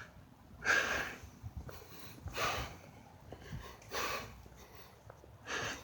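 A man breathing heavily, four audible breaths about a second and a half apart.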